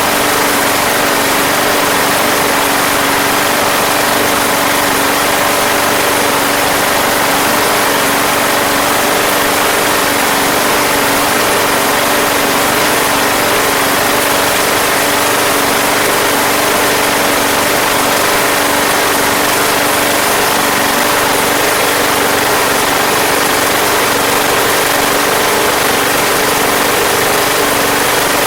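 Briggs & Stratton 190cc single-cylinder mower engine running steadily at a constant speed.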